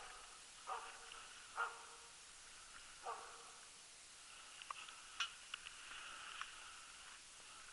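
Jämthund (Swedish elkhound) giving bay barks, four single barks in the first three seconds or so: the stand barking of a dog holding a moose at bay. A few faint, sharp clicks follow about five seconds in.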